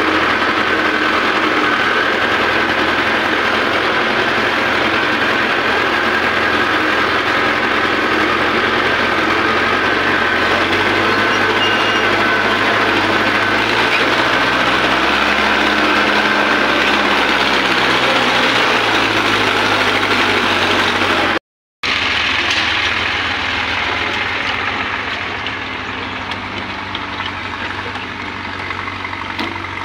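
Tractor diesel engine running steadily from the driver's seat, its pitch shifting up and back down around the middle. After an abrupt cut it gives way to quieter tractor engine sound.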